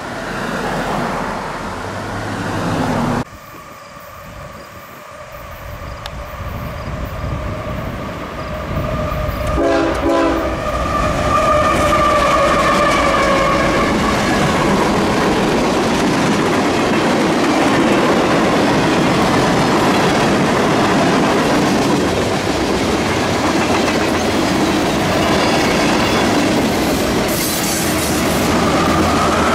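A short stretch of road traffic at a crossing. Then a CSX freight train approaches and sounds its horn for a few seconds. Its locomotives and freight cars then pass close by with a steady heavy rumble and the clickety-clack of wheels over rail joints.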